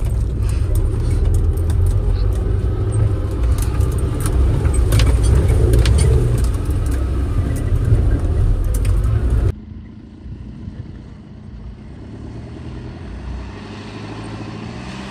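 A vehicle driving over rough off-road ground: a heavy low rumble with scattered clatter and rattling. About two-thirds of the way through it cuts off suddenly to a quieter, steadier vehicle sound.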